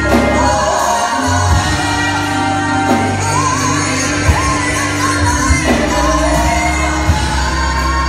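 Live gospel song: a woman singing lead with backing singers, over a Hammond B3 organ and band, with sustained low notes under the gliding sung melody.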